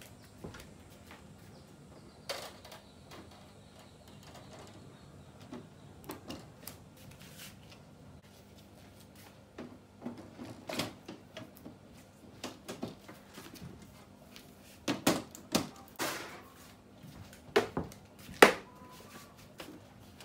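Scattered clicks, knocks and clacks of plastic and metal parts as a Samsung LCD TV's panel and frame are handled and fitted together, with a cluster of louder knocks in the last few seconds.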